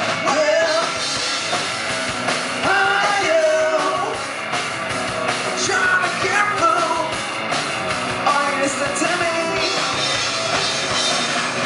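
Live rock band playing: electric guitar, electric bass and drum kit, with a singer's voice.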